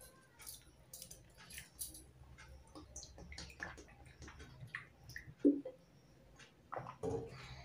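A person drinking water from a plastic bottle: scattered soft clicks and crinkles of the bottle with wet mouth sounds, and one louder short sound about five and a half seconds in.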